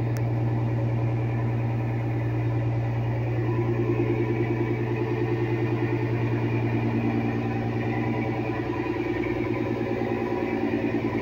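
Fishing boat's engine running steadily, a low hum with a fast, even beat.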